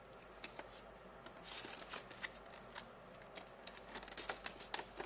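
Folded paper being opened out and handled: faint rustling with scattered light clicks and ticks, which grow thicker near the end.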